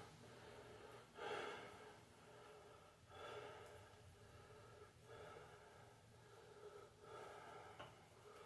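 Near silence, with faint breaths about every two seconds.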